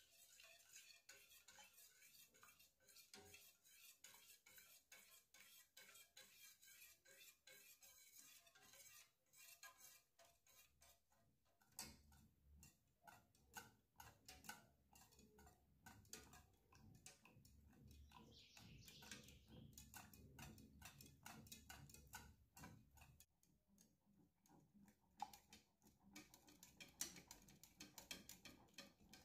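Faint, rapid clicking of a wire whisk against the sides of a stainless steel saucepan as a chocolate mixture is whisked.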